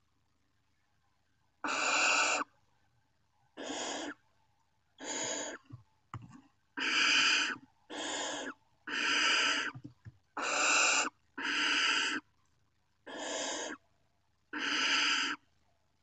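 Barn owl young giving about ten harsh hissing calls, each under a second long, repeated every second or so: the food-begging calls of nestlings.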